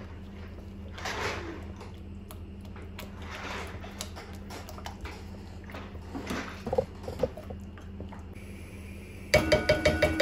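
Metal cookware and utensils being handled while cooking: soft scrapes and small knocks over a steady low hum, then near the end a quick run of about eight ringing metallic clinks.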